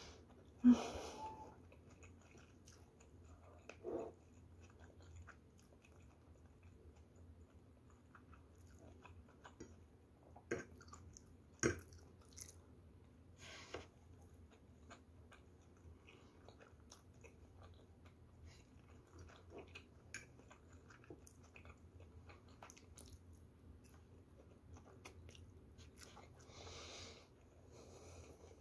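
A person chewing a mouthful of fried rice with soft, faint mouth sounds, broken by a few short clicks, the loudest about a second in and around the middle.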